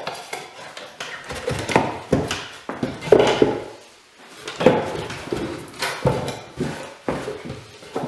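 Wooden sawhorse legs and boards knocking and clattering against each other as they are pulled apart and stacked. There is a string of irregular knocks with a brief lull about four seconds in.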